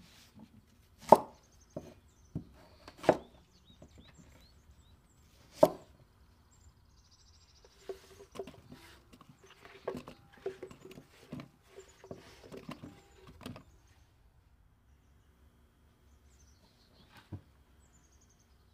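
Large kitchen knife chopping through zucchini onto a wooden cutting board: about five sharp chops in the first six seconds. Then zucchini chunks dropped into a glass bowl of vegetables, a run of light clattering knocks with a faint ring, and a single soft tap near the end.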